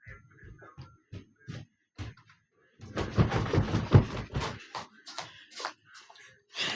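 A string of knocks and thumps from someone moving about and handling things, with a louder stretch of heavy bumping from about three to four and a half seconds in.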